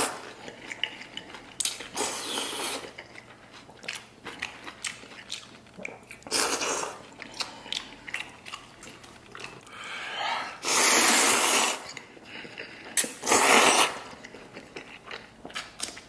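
A person slurping thick wheat noodles in chili-oil soup: four loud sucking slurps, the longest about ten seconds in, with wet chewing and small mouth clicks between them.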